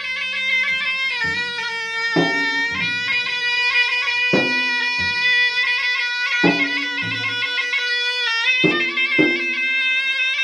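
Traditional Bugis-Makassar gendang music: a small shawm plays a continuous nasal, reedy melody while two double-headed gendang drums beat under it, their strokes mostly in pairs about every two seconds.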